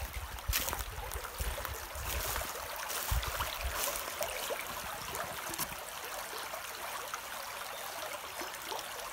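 A small bubbling brook, water trickling and babbling steadily. A few low thumps sound in the first few seconds.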